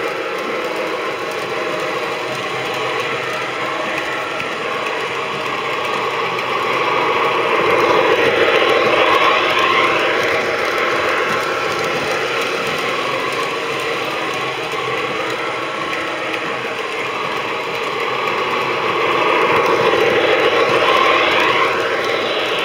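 Lionel O-gauge electric train running around a small loop of track: a steady mechanical clatter of metal wheels rolling over the rails with the motors whirring. It grows louder twice as the train passes close by.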